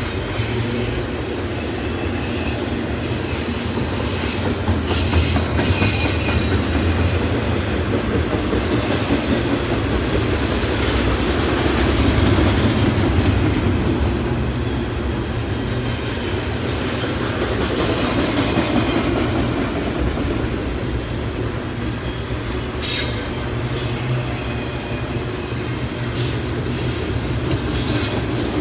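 Double-stack intermodal container train's well cars rolling past: a steady, loud rumble of steel wheels on rail, with short high-pitched wheel squeals breaking through a few times.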